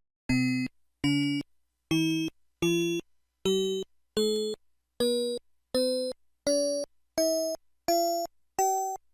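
Twelve short synthesized key tones from a Curitel S4 phone's Yamaha MA-5 sound chip, about one every 0.7 seconds. Each tone is a little higher in pitch than the one before.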